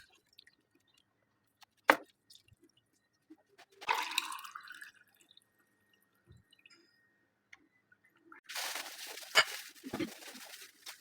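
Water sounds: a sharp clink, then a short pour rising in pitch, then a longer splash of running water with a couple of knocks near the end.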